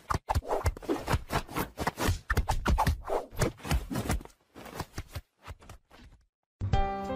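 Wooden whack-a-mole cat toy clattering as a kitten bats at the mice popping up through its holes: a quick, irregular run of knocks, clicks and scrapes with a few short pauses. Music cuts in near the end.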